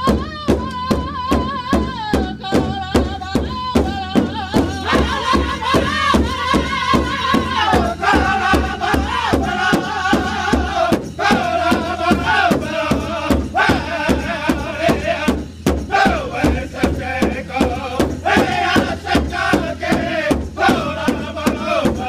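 Powwow drum group singing a veterans' song: several male voices sing together over a steady, even drumbeat on a big drum, in phrases that start high and step down in pitch.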